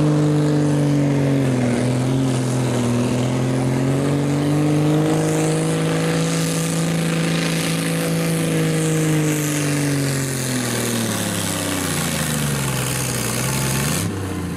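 Naturally aspirated super stock pulling tractor's engine running flat out as it pulls the sled. The revs sag briefly about two seconds in, recover and hold, then drop away over the last few seconds, with a short blip just before the sound cuts off.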